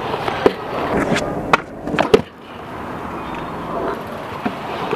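Stunt scooter's hard wheels rolling over skatepark concrete with a steady gritty roll, broken by sharp clacks of the scooter striking the ground: one about half a second in, one at a second and a half, and a quick pair just after two seconds.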